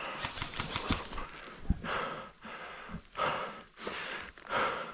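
A person breathing hard, with three heavy breaths a little over a second apart, after a few light clicks and rattles in the first second.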